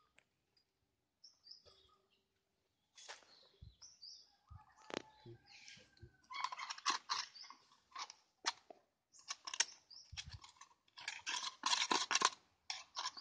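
Chainsaw guide bar and chain being handled and fitted by hand: irregular metal clicks and chain clatter, sparse at first and coming thick and fast from about six seconds in.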